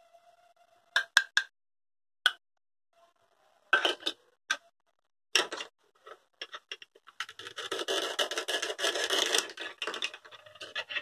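Hard plastic toy pieces clicking down on a table a few times, then from about seven seconds in a long crackling rip of hook-and-loop (Velcro) pulling apart as a plastic toy knife splits the two halves of a green toy vegetable.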